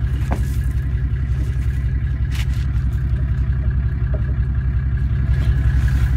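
A four-wheel-drive's engine running at a steady low rumble, with a couple of faint clicks over it.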